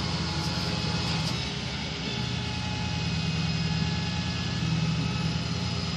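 Heavy flatbed tow truck's diesel engine idling steadily with a low, even hum.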